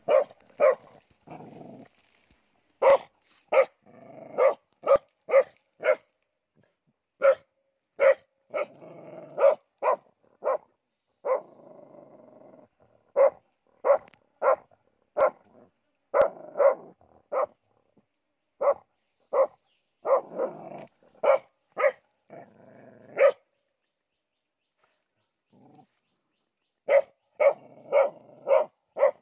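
Dog barking excitedly while digging at a burrow in soil: many short, sharp barks in quick runs of two to four, with softer scuffling between them and a pause of a few seconds near the end.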